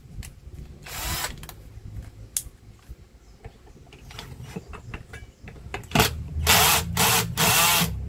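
Cordless drill-driver run in short bursts on a vacuum cleaner motor's mounting screw: one brief burst about a second in, then several stop-start bursts near the end. The screw will not come loose.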